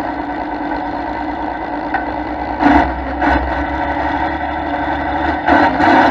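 Competition pulling tractor's diesel engine running at idle on the start line, with two short louder bursts about three seconds in. It opens up and grows louder near the end as the pull begins, blowing black smoke.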